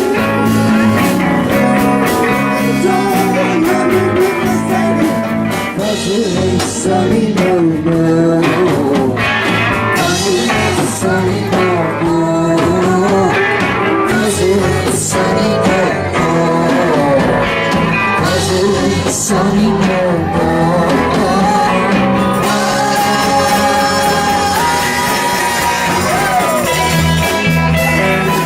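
Blues-rock song: a band with guitar playing and a voice singing over it.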